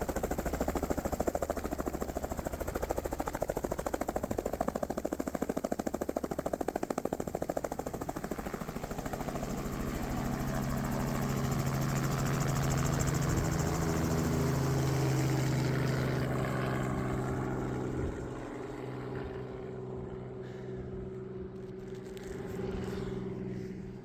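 Helicopter running with a fast, even rotor beat, then a steady engine hum swells and drops away about three-quarters of the way through.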